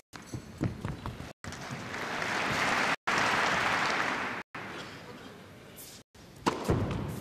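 Tennis crowd applauding, swelling and then fading over about three seconds, broken by brief dropouts in the recording. Near the end come a few sharp knocks of a tennis ball bouncing and being struck.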